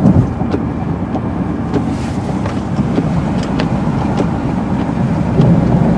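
Car driving at road speed, heard from inside the cabin: a steady low rumble of road and engine noise, with a few faint scattered ticks.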